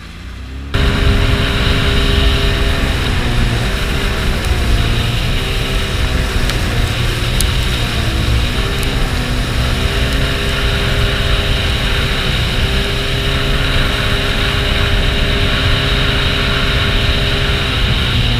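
Sea-Doo Spark jet ski's three-cylinder Rotax engine running hard at planing speed, a steady drone that sags in pitch a few times and picks back up, under wind and water-spray hiss. It cuts in suddenly about a second in.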